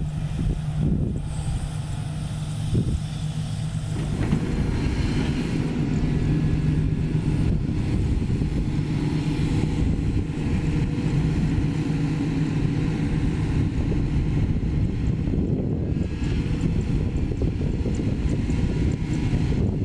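Sany SY215C excavator's diesel engine running steadily under working load, growing louder and fuller about four seconds in.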